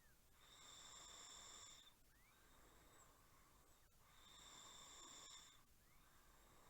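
A person snoring faintly: two snores about four seconds apart, each lasting about a second and a half, with a thin, steady high whistle through each.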